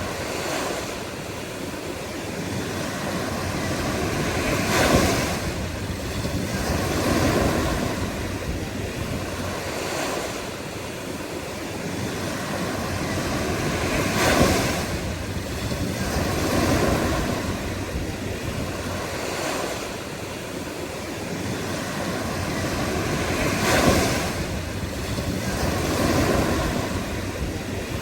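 Ocean surf: waves breaking and washing in a steady series, each swelling and falling away, with a bigger crash about every nine to ten seconds.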